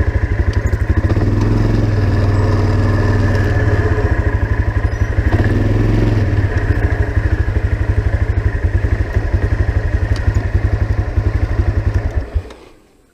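A vehicle's engine running with a fast, even pulsing, then switched off about twelve seconds in.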